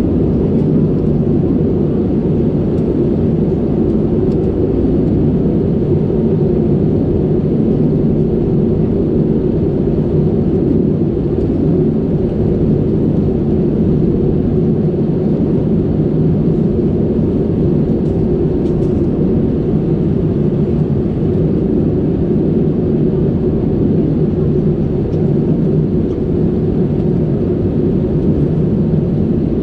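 Airbus A320 cabin noise at a window seat over the wing during descent: a steady low drone of jet engines and airflow, even in level throughout.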